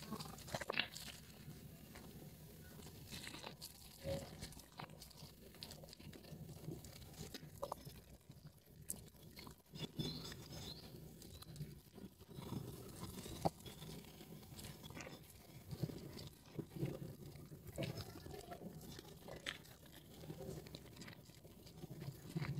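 Hands squeezing and kneading soaked, mushy red Nuvo bar soap in thick lather: irregular wet squelches with small crackles and pops of the foam.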